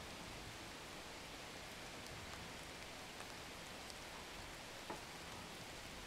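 Faint steady hiss of room tone with a few soft taps of hands on a desk and computer mouse, the clearest about five seconds in.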